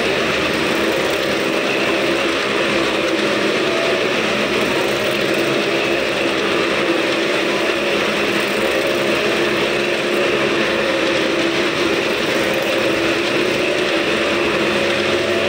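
Several motorcycles ridden in circles around the vertical wooden wall of a wall-of-death drum, their engines running steadily together.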